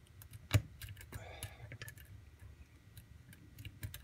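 Small metallic clicks and ticks of a lock pick working the pins of a pin-tumbler lock held under a tension wrench, during single-pin picking. One sharper click comes about half a second in, and a brief scraping about a second in.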